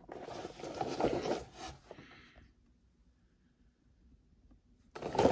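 Cardboard packaging rubbing and scraping as hands spread open the flaps of a box's inner tray, for about two seconds, then fading to dead silence; the rustling starts again near the end.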